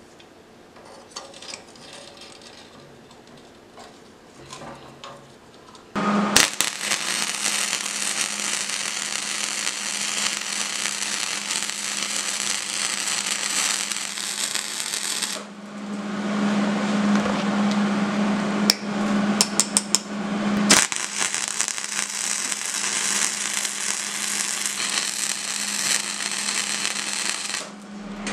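Electric arc welder welding the seams of a stacked steel billet: a loud, dense crackle that starts about six seconds in and runs for about nine seconds, then a steady hum, then a second weld of about seven seconds. Before the welding, a few light knocks as the steel stack is handled into a bench vise.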